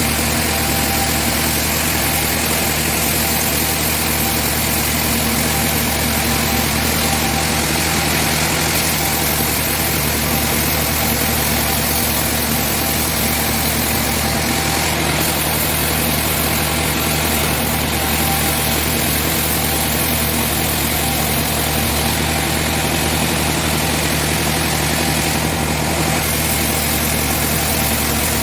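Sawmill machinery running steadily: a constant engine drone that does not change in pitch or loudness, with no cuts or pauses.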